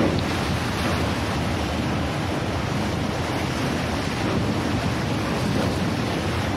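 Steady rush of wind buffeting the microphone as it is held out of a moving train above the sea, with a low rumble underneath and no breaks or beats.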